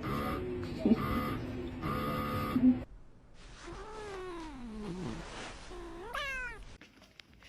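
A domestic cat meowing and yowling: a run of repeated steady-pitched calls, then long meows that slide down in pitch, and a quick rising call near the end.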